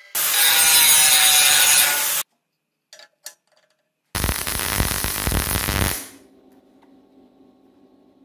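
MIG welder running two weld beads of about two seconds each, a steady crackling arc, joining a steel square duct to its flange plate. A faint steady hum follows.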